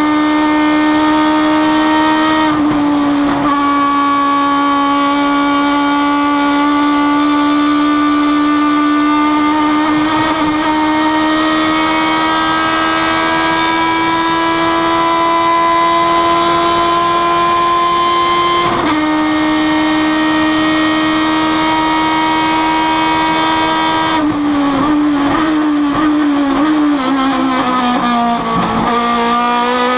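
Súper TC2000 race car engine at full throttle, heard from inside the cockpit: a loud, steady note whose pitch climbs slowly, drops sharply twice as the driver shifts up, then wavers and falls near the end as the car slows for a corner.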